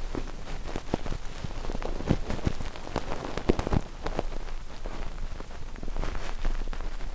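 ASMR ear-cleaning sounds: irregular scratching and crackling close on the microphone, over a steady bed of soft rain.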